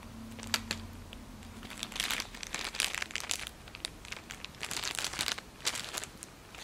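Plastic wrapping of a McDonald's toy crinkling in irregular bursts as a squirrel monkey handles it, trying to unwrap it.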